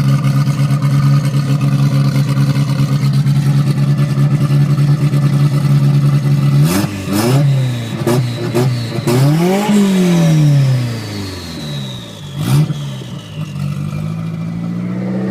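Volvo 242's turbocharged engine with a Holset HX40 turbo, idling steadily, then blipped several times in quick succession and revved higher once about ten seconds in before dropping back to idle. After the big rev a high whistle falls slowly in pitch as the turbo winds down.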